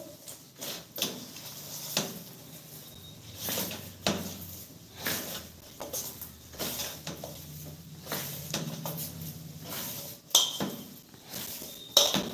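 Stainless steel bowl knocking and clinking irregularly on the counter as a hand works inside it.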